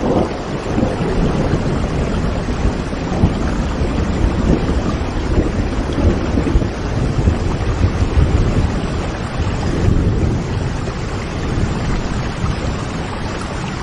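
Heavy rain falling steadily, with thunder rumbling low underneath in rolling swells.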